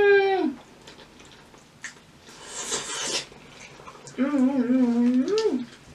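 Two drawn-out closed-mouth "mmm" hums of enjoyment while eating creamy pasta: one in the first half second, and a lower one about four seconds in whose pitch wavers and rises at the end. Between them, a short noisy slurp.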